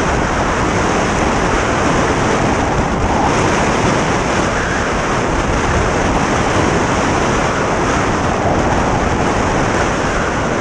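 Strong wind blowing over the camera's microphone, a loud, steady rush without a break.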